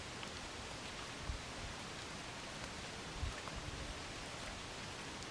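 Steady wind hiss, with two low buffets of wind on the microphone, one about a second in and one past the middle.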